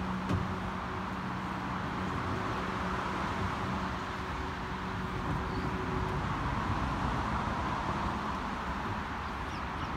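Steady rush of distant road traffic, with a low hum underneath that fades out about halfway through.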